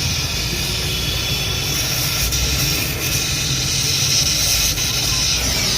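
Steady machine noise with a strong hiss and a low hum underneath, unbroken throughout.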